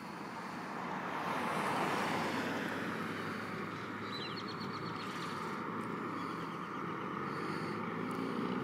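A car overtaking and passing close by, loudest about two seconds in and fading as it pulls away, over steady wind and road noise from riding along the street.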